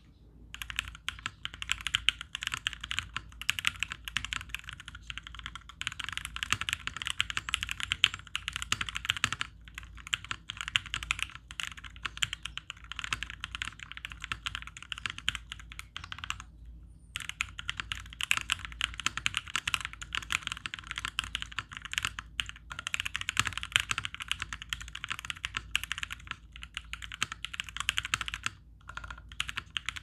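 Continuous fast typing on a Constellation mechanical keyboard with lubed and filmed Konpeitou switches, a polycarbonate plate and GMK keycaps: a dense stream of key strokes with a few short breaks, the longest about sixteen seconds in.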